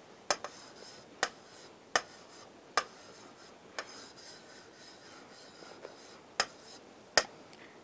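Marker pen writing on a whiteboard: faint squeaky strokes with about seven sharp taps at irregular intervals as the tip meets the board.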